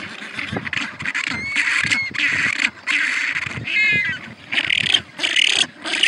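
African penguins braying: a run of harsh, hoarse honks, one after another, with a few short squeaky notes about four seconds in.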